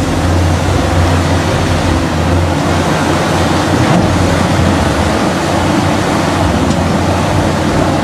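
Cat 6015B hydraulic mining excavator's diesel engine running steadily as the machine works, with a low hum under a constant rush of noise as it dumps a bucket of earth into a dump truck.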